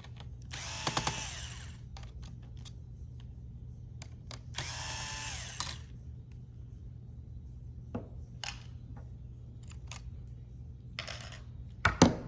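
Small electric screwdriver running in two short bursts of about a second each, its whine rising and falling as it backs out laptop screws. Light clicks of small parts and tools come in between, with a louder clatter near the end.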